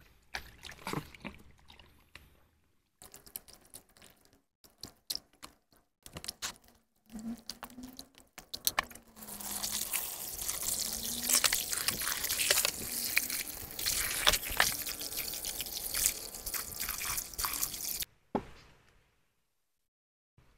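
Hands squelching and sloshing goat offal around in a plastic basin of water, then a stream of running water pouring into the basin as the offal is rubbed and rinsed clean of slime. The running water starts about nine seconds in and cuts off suddenly near the end.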